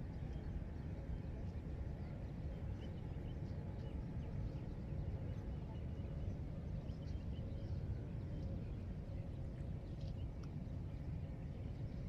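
Steady low rumble of outdoor ambience, with faint, short bird chirps scattered throughout.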